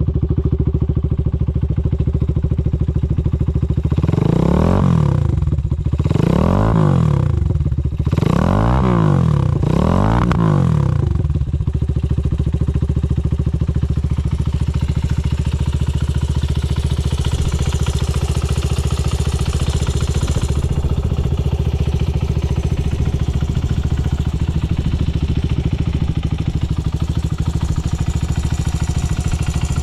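Honda Ape motorcycle with an Ape 100 single-cylinder four-stroke engine and Yoshimura titanium exhaust idling, blipped four times in quick succession about four seconds in, each rev rising and falling back, then settling to a steady idle. It runs without abnormal noise, in good condition.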